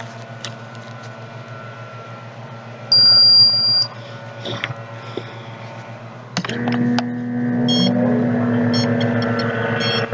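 Home electronic blood pressure monitor: a single high beep lasting about a second, then, from about six seconds in, its cuff pump motor running with a steady hum as the cuff inflates, with a few short high chirps over it.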